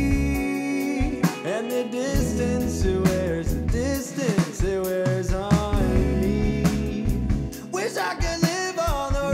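Rock band music with a drum kit, a heavy bass line and a lead melody line that slides and bends in pitch.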